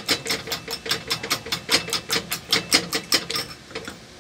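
Eggs being beaten in a white ceramic bowl with a metal utensil, which clicks against the bowl in a fast, even rhythm of about five strokes a second. The beating stops near the end.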